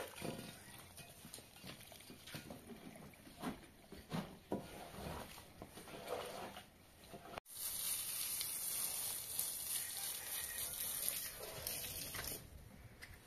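Long-handled broom scrubbing a wet, soapy carpet in short irregular strokes. After a cut about seven seconds in, a steady hiss of water from a hose running onto the rug, which fades near the end.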